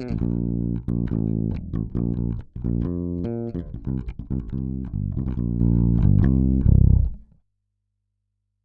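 Electric bass guitar line played back through a Great River PWM-501 compressor, a run of plucked notes with a heavy low end that cuts off suddenly near the end.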